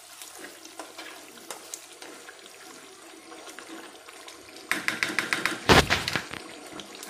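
Beef chops in thick masala gravy bubbling and sizzling in a nonstick pan as they are stirred with a plastic spatula, cooking uncovered. The crackling grows louder and denser about two-thirds of the way in.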